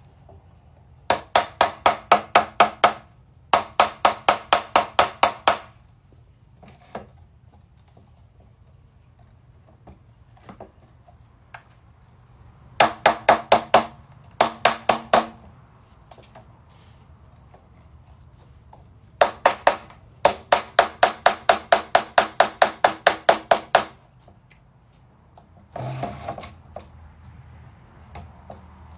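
A mallet striking the PVC pipes of a hydroponic rack to drive the tier's tubes fully into their connectors. The strikes come in quick runs of about four a second, five runs in all, the longest lasting several seconds near the end, with a single duller thump after it.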